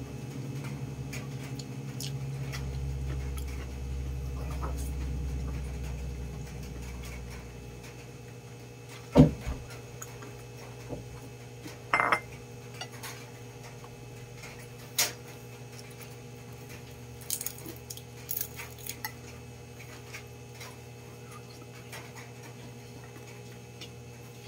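Tableware sounds while eating by hand: a few sharp clinks and knocks on a plate and bowl, the loudest about nine seconds in, more around twelve and fifteen seconds, then a few lighter taps. Under them, a low steady hum fades away about eight seconds in.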